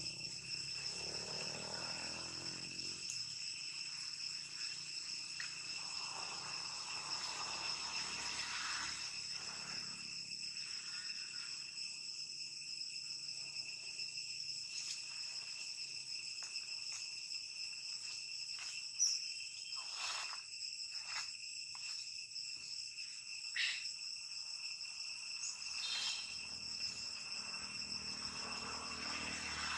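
Steady high-pitched insect chorus ringing without a break. A few short clicks and knocks come in the second half.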